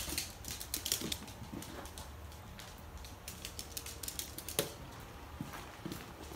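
A puppy's claws clicking on a hardwood floor as it scampers about: a run of light, irregular ticks, with one sharper knock a little past halfway.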